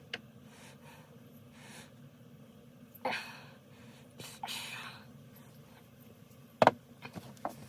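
Quiet handling of a disassembled chainsaw over a low steady hum. There are two short breathy rushes of air, about three and about four and a half seconds in, and a single sharp knock about six and a half seconds in.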